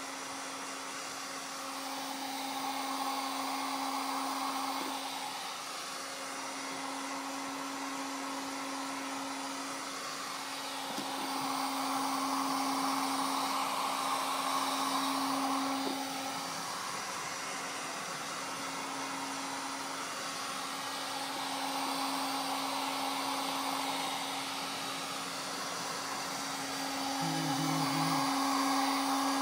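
Electric heat gun blowing steadily with a constant motor hum, heating a rubber hose sleeve onto a cable end; it swells and fades in loudness every several seconds.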